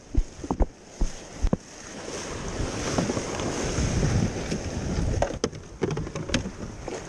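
Surf washing in, with wind buffeting the microphone: a rush that swells for a few seconds and then eases off. Sharp knocks come in the first second and a half and again near the end.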